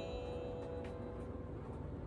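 A bell-like musical tone dying away, followed by a few faint, sharp clicks.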